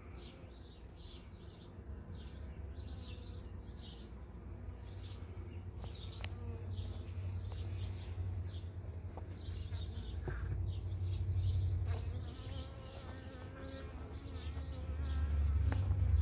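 Honeybees buzzing as a crowd of workers mills over a hive top around a virgin queen. The hum swells twice, about two-thirds of the way through and again near the end.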